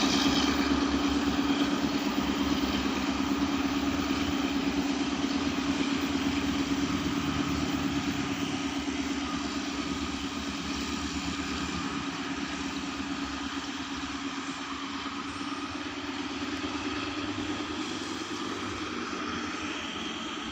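Diesel train hauled by an Alsthom diesel-electric locomotive pulling away. Its engine runs with a steady hum that slowly fades as the train draws off.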